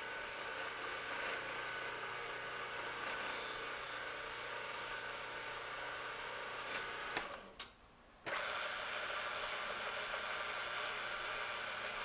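Vertical milling machine running at its slowest spindle speed, about 115 RPM, while tapping a 1/4-20 thread with a two-flute spiral tap: a steady mechanical hum with several steady tones. About seven seconds in, the machine stops with a click and starts again abruptly about a second later.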